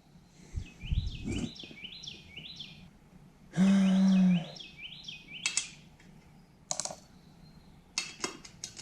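A bird chirps over and over in the background, with a short, loud, steady hum about halfway through. Several sharp clicks follow near the end.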